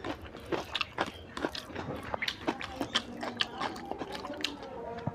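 A person chewing a mouthful of fatty mutton curry and rice, with irregular lip smacks and mouth clicks several times a second.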